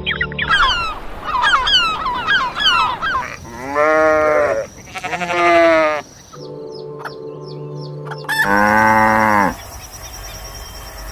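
A flurry of short, high, falling-pitch bird calls, then sheep bleating: three loud bleats, the second one quavering.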